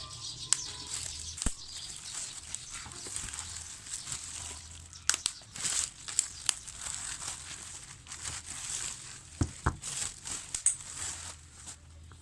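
Plastic wrapping on a CD album package crinkling and tearing as it is handled and pulled open, with scattered sharp clicks and snaps.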